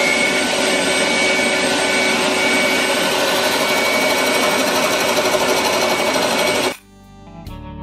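Wood lathe running with a steady whine while a turning tool cuts the spinning ironbark blank, giving a dense scraping hiss. It cuts off suddenly near the end and acoustic guitar music takes over.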